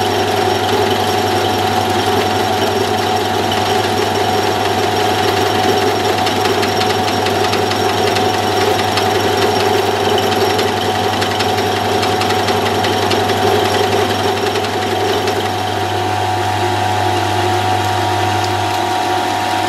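Milling machine spindle running with a freshly reground end mill taking a light climb-milling cut in aluminium. It makes a steady hum with a constant whine over it and stops at the very end.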